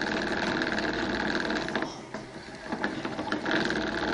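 A young hamster running in his exercise wheel, which spins with a steady, rapid whir. The sound dips briefly about two seconds in, then picks up again.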